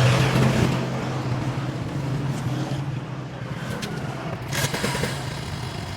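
Motorcycle engine idling steadily while its carburettor fuel mixture is being adjusted. It is slightly louder at the start, then settles to an even idle. There is a brief sharp knock about four and a half seconds in.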